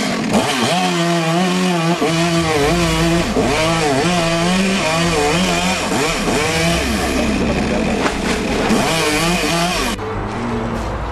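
Two-stroke chainsaw engine running and being revved, its pitch rising and falling repeatedly, with stretches held steady at high revs. The sound changes near the end.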